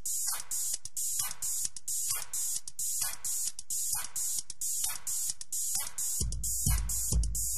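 Electronic background music with a fast, even drum-machine beat of about four short hissy hits a second, with a deep bass beat coming in about six seconds in.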